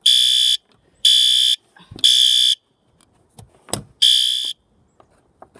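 System Sensor P2RL fire alarm horn sounding the code-3 temporal evacuation pattern on its low-volume setting: three harsh half-second beeps about a second apart, a pause, then the first beep of the next round near the end.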